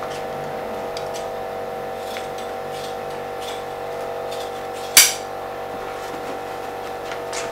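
Light handling sounds and small scattered clicks as a rubberized horsehair pad is fitted into a chair seat frame, over a steady background hum. One sharp clack about five seconds in is the loudest sound.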